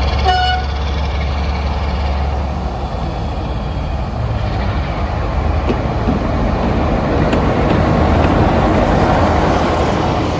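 Class 46 diesel locomotive's Sulzer twelve-cylinder engine pulling a train away from a station: a steady low engine note for the first couple of seconds, then the engine and train noise grow louder, peaking near the end. A brief high toot sounds at the very start.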